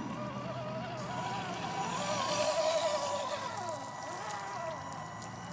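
Electric motor and geared drivetrain of an Axial SCX10 Deadbolt RC crawler whining, its pitch rising and falling as the throttle changes, with a louder stretch of hiss about two seconds in.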